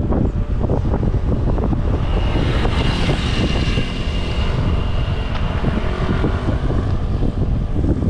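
Wind buffeting the microphone of an action camera on a moving road bike: a loud, gusty rumble with irregular thumps.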